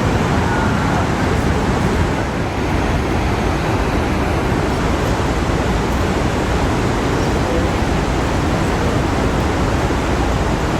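Large waterfall: a steady, loud rush of falling water, heavy in the low range, with no breaks or changes.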